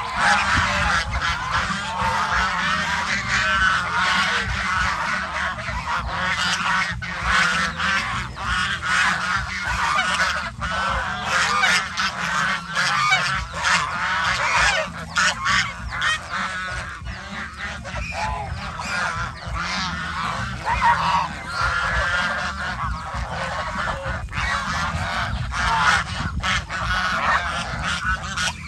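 A flock of geese honking continuously, many overlapping calls with no pause.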